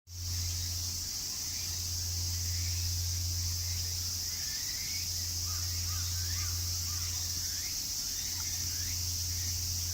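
Insects droning steadily at a high pitch, with scattered short bird chirps and a low steady hum underneath.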